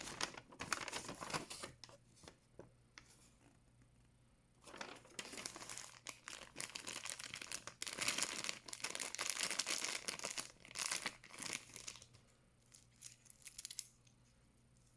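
Packaging being crinkled and torn open by hand, in two stretches of crackling with a pause between, then a few light clicks near the end.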